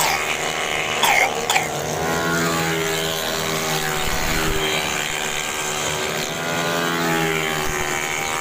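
Racing automatic scooters' engines running at high revs as the bikes take a corner close by, the pitch rising and falling as they pass. A few short, loud sounds come about a second in.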